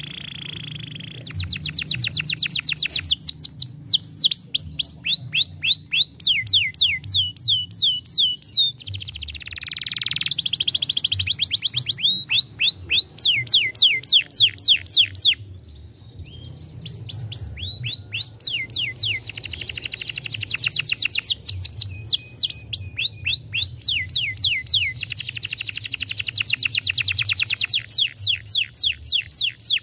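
Canary singing: rapid trills of repeated falling notes, one phrase running into the next, with a brief pause about halfway through.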